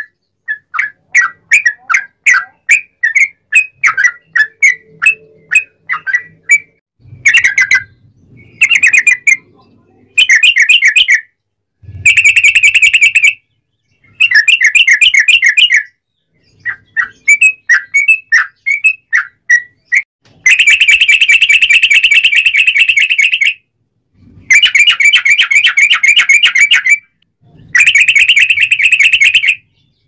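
Yellow-vented bulbul singing loudly: a string of short chirping notes, two or three a second, then from about seven seconds in a series of fast rolling trills, the long 'ropel' trill, each lasting one to three seconds with short pauses between.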